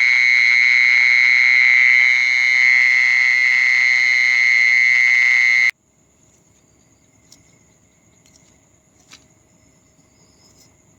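A loud, steady, high-pitched electronic alarm tone that cuts off abruptly nearly six seconds in, leaving only a faint steady high-pitched drone with a few soft clicks.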